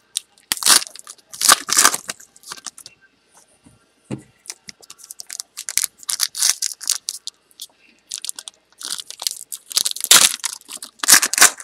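Trading-card pack wrappers crinkling and tearing as packs of 2012 Panini Prizm Baseball are opened by hand, in irregular bursts of crackle.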